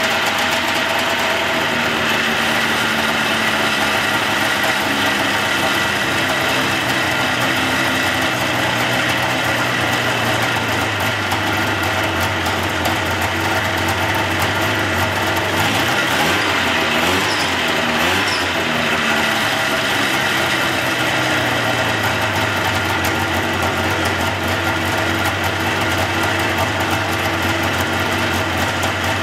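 1976 Arctic Cat Pantera 5000 snowmobile's two-stroke engine running steadily with its air box off, just revived after years in storage and running well. Its speed dips and rises briefly past the middle.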